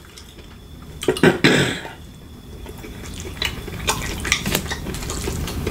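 Eating utensil clinking and scraping against a food bowl: a cluster of sharp clicks about a second in, then scattered clicks over a low rustle in the second half.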